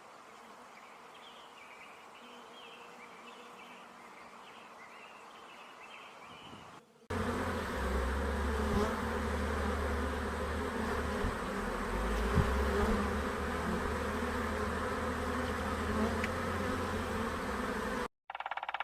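Insects buzzing in a dense, steady drone, beginning suddenly about seven seconds in after a faint stretch with small high chirps.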